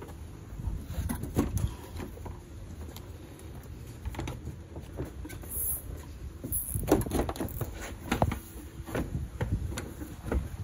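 Plastic front bumper cover of a Suzuki Swift being worked loose from its clips by hand: irregular clicks, knocks and rustling, busiest about seven seconds in.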